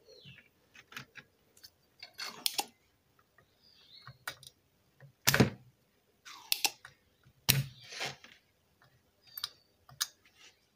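Scattered clicks and knocks of hand tools and a circuit board being handled and set down on a workbench, with two louder knocks about five and a half and seven and a half seconds in.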